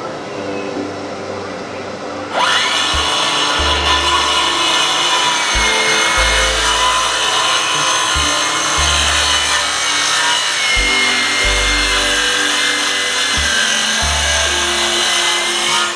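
A power saw starts up about two and a half seconds in, its motor pitch rising quickly, then cutting wood steadily with the pitch wavering. Background music with a repeating bass line plays underneath.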